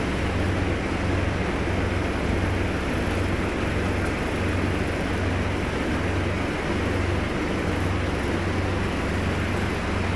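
Aquarium pump and filter running: a steady low hum with an even rushing of moving water, unchanging throughout.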